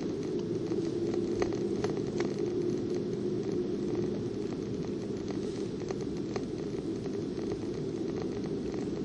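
Steady low road and engine noise of a moving car, heard from inside the car, with a faint steady hum and scattered light clicks.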